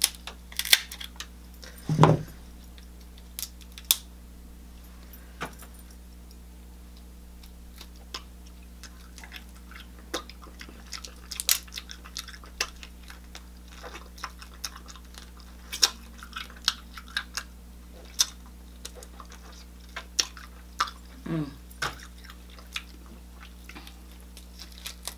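Close-miked eating sounds: a cooked shellfish shell being snipped with kitchen shears and picked apart by hand to get the meat out, with chewing. It comes as scattered small clicks and crunches, denser in the middle.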